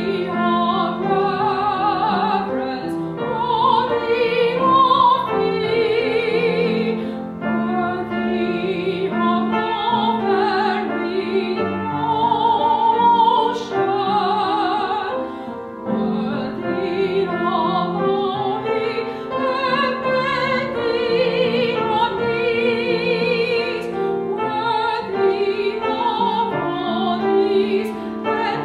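A woman singing solo with a strong vibrato, accompanied by piano.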